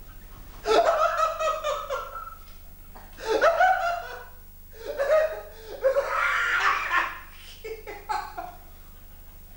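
A man laughing heartily in four long bouts, each a run of pitched 'ha' sounds, with short pauses between them.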